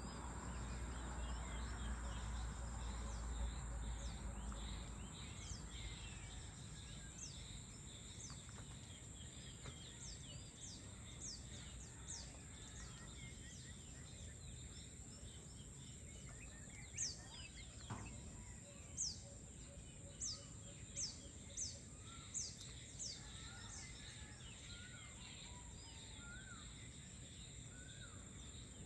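Outdoor evening ambience of birds calling: many short, sharply falling high chirps, with a louder run of about six in quick succession past the middle, and some lower arched calls near the end. Under them runs a steady high hum, and there is a low rumble in the first few seconds.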